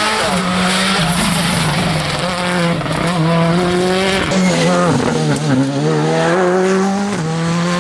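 Hyundai i20 rally car's turbocharged four-cylinder engine revving hard as it passes and takes a bend. The pitch rises and drops again and again as it changes gear and lifts off the throttle.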